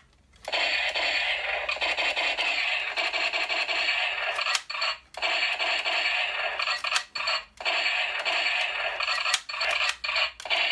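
Electronic machine-gun sound effect from a battery-powered toy SVD sniper rifle, played through its small built-in speaker: a continuous, thin, tinny rapid-fire sound, broken by brief pauses about halfway through and twice more in the second half.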